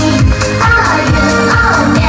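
Upbeat J-pop idol-group song: women singing over a steady dance beat.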